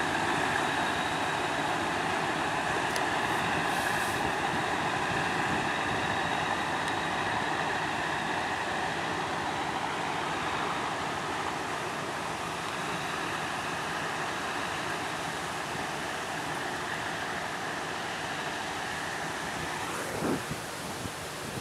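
Inland cargo barge's diesel engine running steadily as the vessel passes close and draws away, slowly fading. A brief knock near the end.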